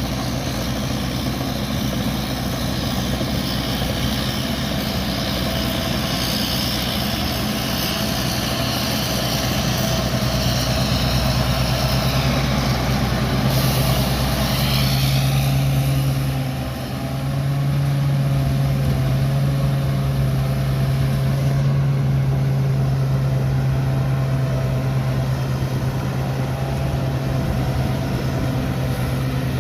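Large rice combine harvester's engine running steadily with a deep, constant hum. A higher hiss rides over it for the first half, and the level dips briefly about sixteen seconds in.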